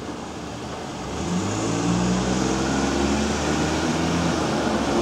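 A road vehicle's engine running, growing louder about a second in and then holding a steady low hum.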